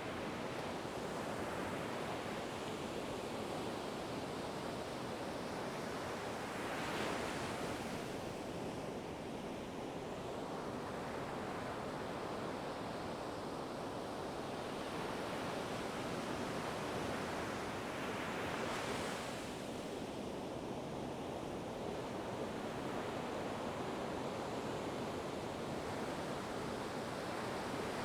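Ocean waves washing on a shore in a steady surf hiss. Two waves break more loudly, one about a quarter of the way in and one about two-thirds in.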